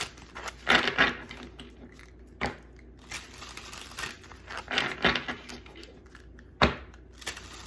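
Tarot cards being handled: a handful of short rustles and taps of card stock, spaced a second or two apart.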